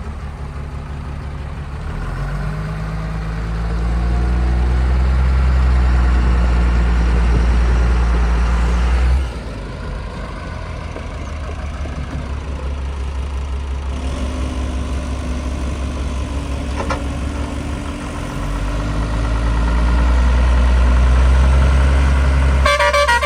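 Heavy diesel engine running, revving up and working harder a few seconds in, dropping back suddenly about nine seconds in, then building up again near the end.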